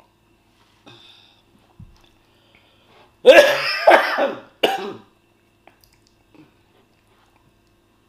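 A woman coughing hard into her hand: a loud fit of coughs about three seconds in, then one short cough. It is a put-on cough, staged as a prank.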